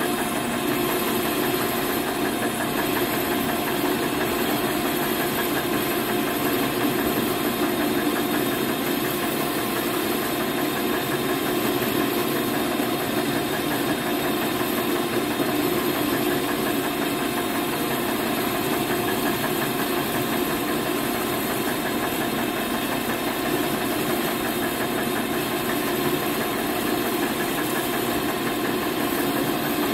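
Metal lathe running steadily under a cut: spindle drive and gearing humming while the tool peels long, stringy chips off the spinning workpiece.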